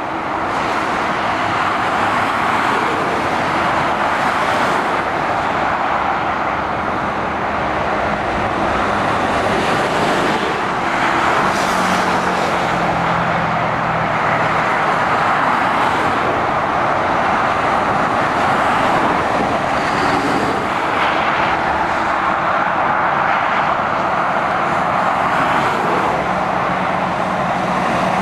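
Steady motorway traffic: tyre noise and engines of passing lorries and cars, with one heavy vehicle's engine note standing out for a few seconds around twelve seconds in.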